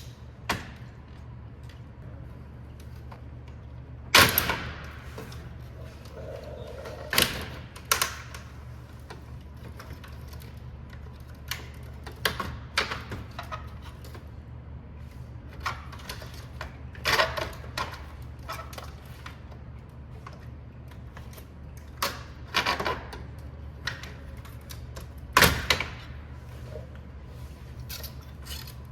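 Plastic clips and trim of a BMW G20 front kidney grille clicking, snapping and knocking as the grille is pulled and pried out of the bumper: about a dozen sharp clicks and knocks at irregular intervals, a few much louder than the rest, over a steady low hum.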